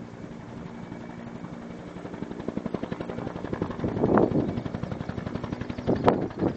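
Huey (Bell UH-1) helicopter's two-bladed main rotor beating with a fast, even blade slap and a steady hum under it, growing louder from about two seconds in.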